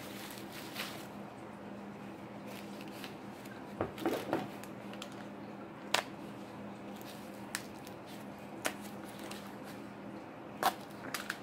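Sparse rustles and light clicks from hands handling packaging and items in a cardboard box, a handful of short separate sounds over a steady low hum.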